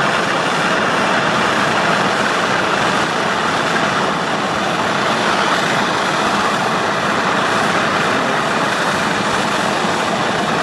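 Gas torch flame hissing steadily while heating a brass buckle for silver soldering.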